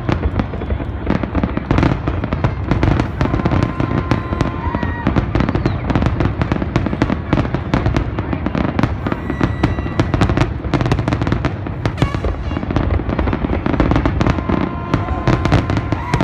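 Fireworks barrage: aerial shells bursting one after another in rapid succession, with crackling between the booms and no let-up.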